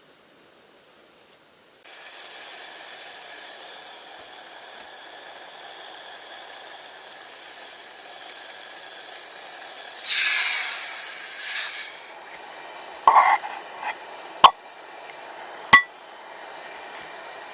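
A camp stove burning with a steady hiss that starts suddenly about two seconds in, swelling louder briefly around the middle, with a few sharp metallic clinks near the end.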